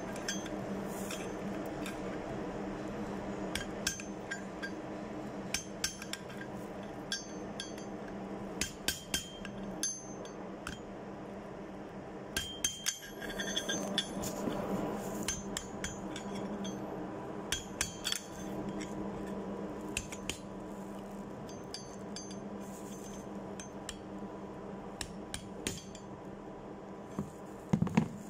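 Irregular light metallic taps and clinks of a flat-bladed steel tool working against a valve spindle's lock nut and locking washer, bending the washer to lock the nut. A steady hum runs underneath.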